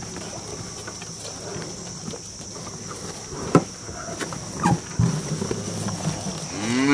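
Cattle moving about at feed, with scattered knocks and clicks, and a cow starting a loud moo right at the end.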